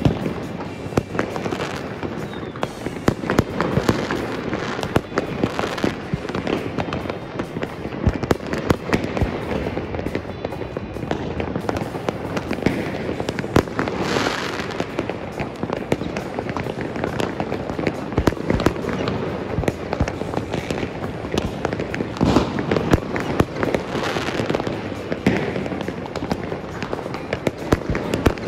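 Fireworks and firecrackers going off all over the city: a dense, unbroken crackle of many overlapping bangs, with aerial shells bursting overhead.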